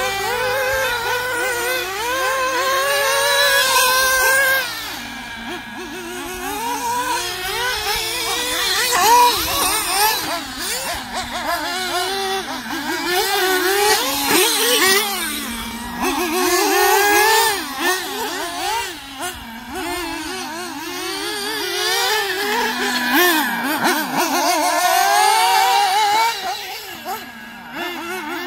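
Mugen Seiki MBX8 and XRAY XB808 1/8-scale nitro buggies racing, their small two-stroke glow engines revving up and down all the time as they accelerate and brake. Two or more engines overlap, their pitches rising and falling independently.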